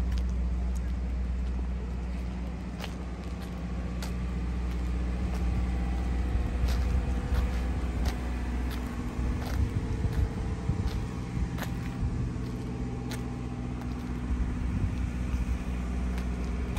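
An engine running steadily with a low rumble and hum, and scattered light clicks and knocks over it.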